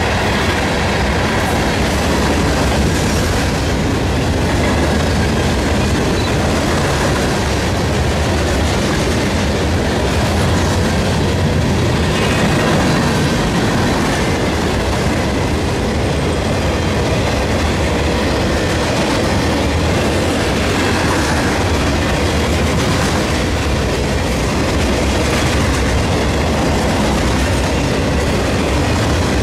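CSX freight train rolling past, a steady, even noise of cars and wheels running on the rails.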